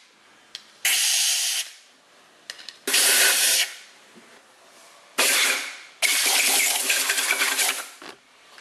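Compressed-air blow gun blowing out the head bolt holes of an engine block, its nozzle pushed through a shop rag held over each hole: four short hissing blasts of air with pauses between, the last one about two seconds long.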